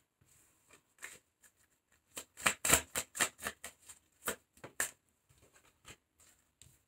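A tarot deck being shuffled and handled by hand: a run of quick papery snaps and rustles, densest and loudest from about two to five seconds in.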